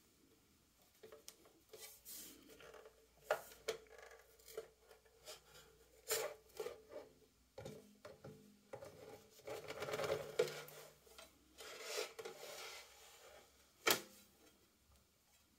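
Hands handling a Jonsbo N1 aluminium NAS case, rubbing and scraping over its metal shell, with scattered light knocks and clicks; the sharpest knock comes near the end.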